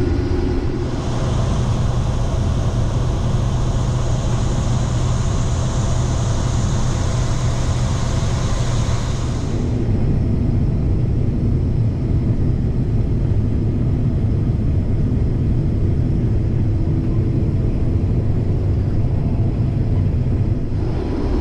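Combine harvester running steadily while cutting soybeans: a continuous low machine rumble. A high hiss rides over it from about a second in and cuts off about nine and a half seconds in.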